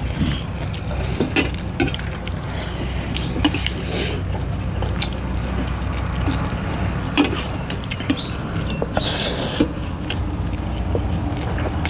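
Close-up eating sounds: chewing with many short wet mouth clicks and smacks, over a steady low rumble.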